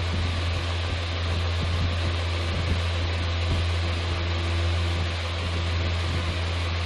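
Electric fan running, a steady low hum with an even hiss, and a few faint taps from hands handling small cardboard parts.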